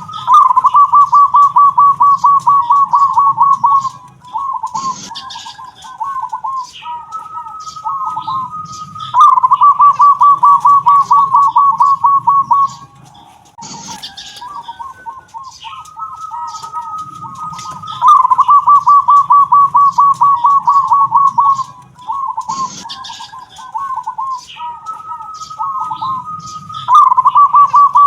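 A zebra dove (perkutut) singing its 'kung'-style song: a held note leading into a loud, quick run of cooing notes, the phrase repeating about every nine seconds with softer notes in between. A short sharp noise comes about a second after each loud run.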